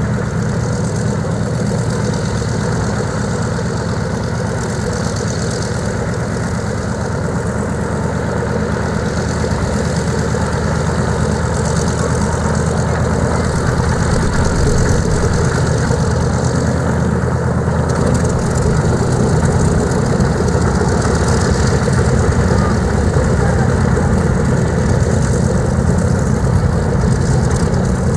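The Catalina's two Pratt & Whitney R-1830 Twin Wasp radial engines idling on the ground after start-up, a steady low running sound that grows somewhat louder about halfway through.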